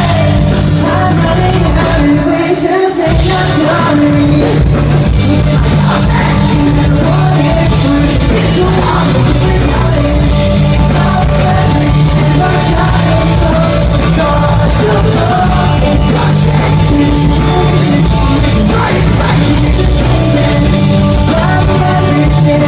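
Pop-punk band playing live in a large hall: loud electric band backing with sung and partly shouted vocals. The bass drops out for a moment about three seconds in.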